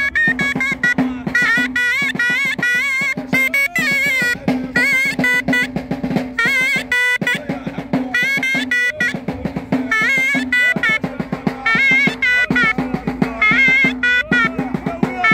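Moroccan ghaita, a double-reed shawm, playing a continuous, shrill, ornamented melody with wavering pitch, over fast, dense strokes on a drum beaten with a stick: Gharbaoui ghaita music.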